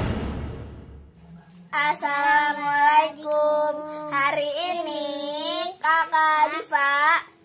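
Intro music fading out in the first second, then a young girl singing in a high voice, holding long wavering notes with short breaks between phrases.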